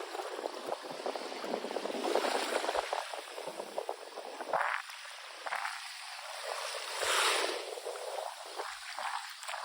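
Small waves washing on a beach, with the crackling fizz of foam draining through the sand and a louder wash of surf about seven seconds in.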